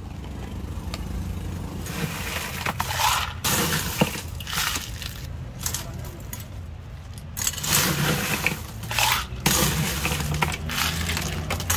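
Ice clattering in a run of short, irregular, crunchy bursts as it is scooped and tipped into drink cups, over a steady low hum.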